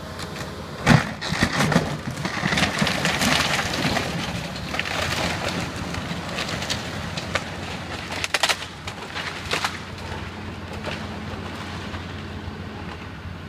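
Excavator engine running steadily while the machine breaks up a pile of house-demolition debris: a string of cracks and clattering knocks of breaking lumber and sheet metal, loudest about a second in and thinning out after about ten seconds.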